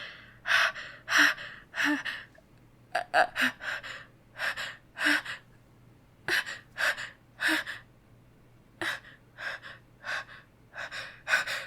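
A woman's sharp, breathy gasps, repeated in quick runs with short pauses between: hitching pre-sneeze breaths as a sneeze builds and she holds it back.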